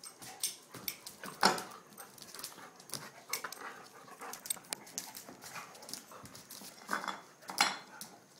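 Two dogs play-wrestling: scuffling bodies, claws on a concrete floor and short noisy bursts, loudest about a second and a half in and again near the end.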